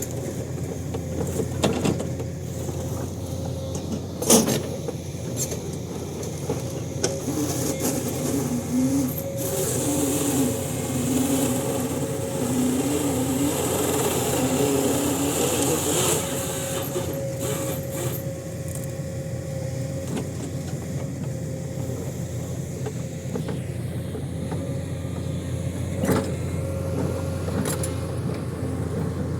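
Heavy forestry machine's engine running steadily, with a wavering whine through the middle and a few sharp knocks.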